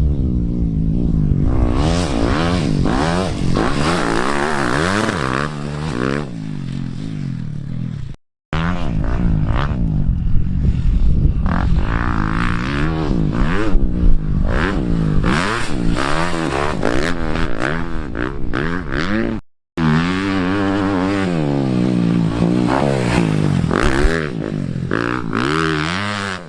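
Dirt bike engines revving up and down hard while riding, in three stretches, each cut off abruptly: about eight seconds in and again near twenty seconds in.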